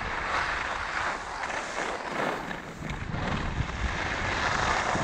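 Skis scraping and carving on snow through a series of turns, the hiss swelling and fading about every second, with wind buffeting the GoPro's microphone.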